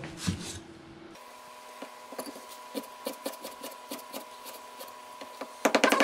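Scattered light taps and clicks of kitchen utensils on a wooden surface and dishes while a seafood dipping sauce is being mixed. Background music with a drum beat comes in loudly near the end.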